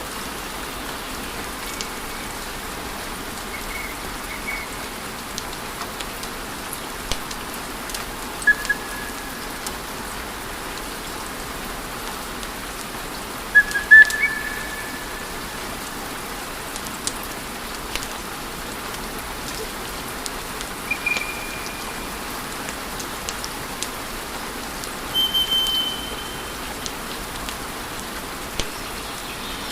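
Wood fire crackling in a fireplace: a steady hiss with scattered sharp pops and snaps, the loudest near the middle, and a few short high whistles here and there.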